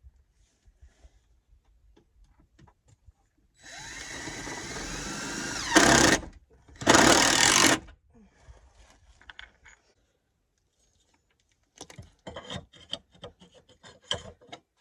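Cordless drill driving a screw into wood: the motor whines, climbing in pitch, for about two seconds, then runs in two short, louder bursts. Scattered knocks and clicks follow.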